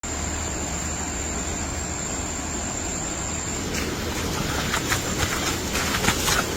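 Steady outdoor background noise with a thin, high, steady whine through the first half. From about halfway it gives way to a run of short crackles and rustles.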